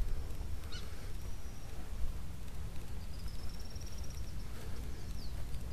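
An insect's high, even trill starts about three seconds in and runs for nearly two seconds, over a steady low rumble. A short high chirp comes just under a second in.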